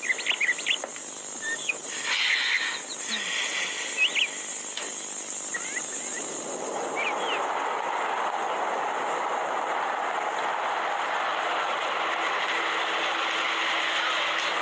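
A car driving along a road: steady engine and tyre noise builds from about six seconds in as it approaches and passes close by. A few short high chirps come before it.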